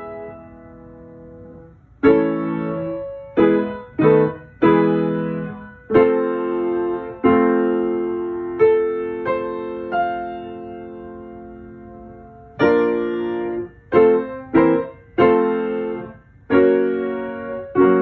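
Piano chords struck one after another, each ringing and fading. The first one dies away for about two seconds before the playing picks up again.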